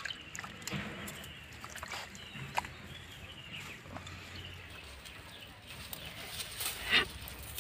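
Faint bird calls in the background, with a few brief sharp clicks, the loudest about seven seconds in.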